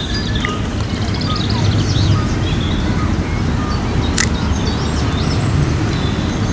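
Small birds singing in varied chirps and quick trills over a steady low rumble. A single sharp click comes about four seconds in.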